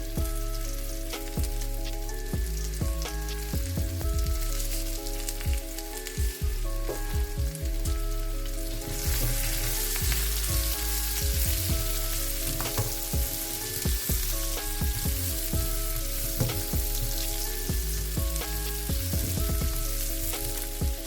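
Food sizzling as it fries in a pan, the sizzle growing louder about nine seconds in, over background music with a steady bass and melody.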